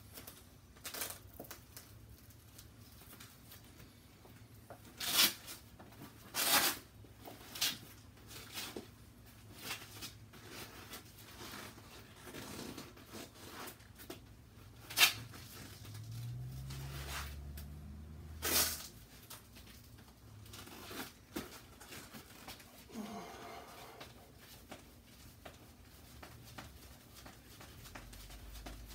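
Intermittent rustling and scraping with about five sharper rips and knocks, the handling noise of a person getting ready in a small, echoey room.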